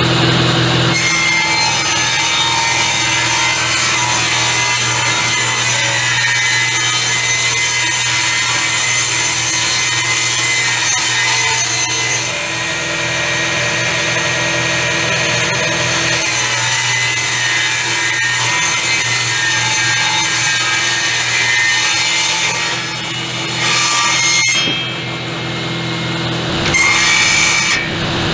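Table saw ripping 3/4-inch boards into batten strips: the blade cuts through the wood with a steady hiss over the motor's hum. Near the end the cut stops, leaving the saw running, and then one short burst of cutting follows.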